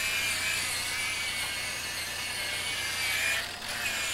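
Electric car buffer (polisher) running with a steady whine, dipping briefly about three and a half seconds in.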